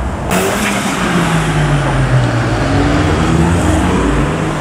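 Modified car engines on a road: one engine note falls away over about two seconds, then another climbs as a car accelerates hard.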